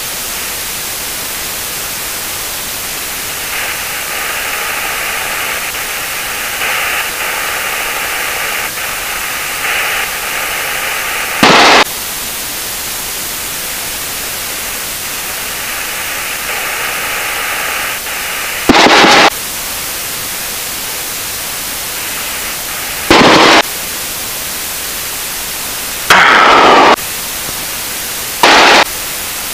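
Steady static hiss of a light aircraft's cockpit intercom audio while taxiing, with no clear engine note. Five short, loud bursts of static break in from about the middle onward.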